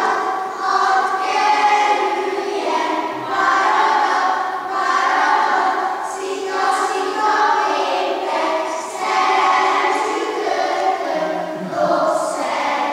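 A group of young children singing a song together, with no break, as they dance a ring game.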